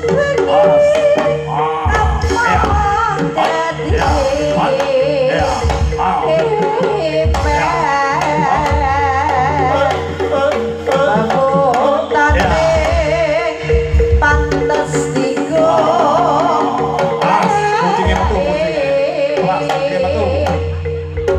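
Live jaranan ensemble music: kendang hand drums beating a driving rhythm under a wavering, ornamented melody, with a steady held tone sounding throughout.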